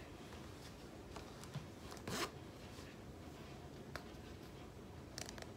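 Faint rustling of clothes being handled and folded, with one louder brief brush of fabric about two seconds in and a few light clicks near the end.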